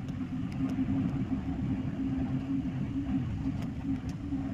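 Bus running downhill, heard from inside the cabin: a steady low engine and road rumble with a few faint light rattles.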